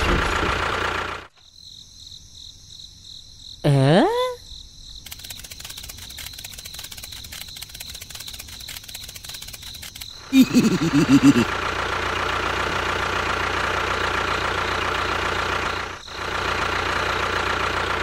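Insects chirring: a steady high ringing and then fast, even clicking, with a short sliding pitched sound about four seconds in. About ten seconds in, a tractor engine starts with a stutter and then runs steadily.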